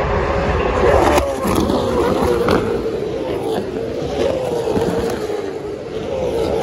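Racing cars passing on the circuit at high revs, the engine note wavering and dropping in pitch several times as cars go by.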